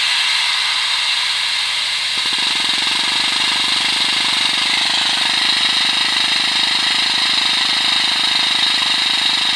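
Air-powered Snap-on vacuum brake bleeder running, a loud steady hiss of compressed air through the tool, drawing brake fluid and trapped air out through the caliper's bleeder fitting. About two seconds in, a lower rapid fluttering joins the hiss.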